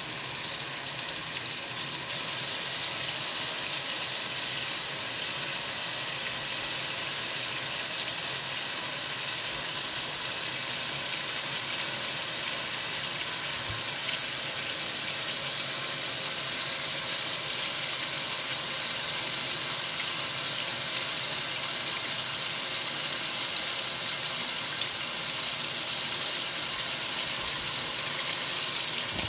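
Water running steadily into the tub of a 1962 RCA Whirlpool LJA70 washing machine as it fills.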